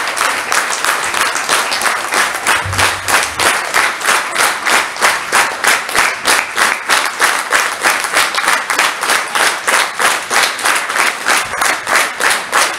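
Audience applause that soon falls into rhythmic clapping in unison, about three claps a second.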